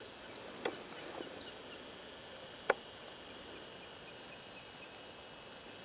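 Small birds chirping over a steady hiss: a few quick high chirps, then a slow run of short notes falling in pitch. Two sharp clicks cut in about two seconds apart; the second is the loudest sound.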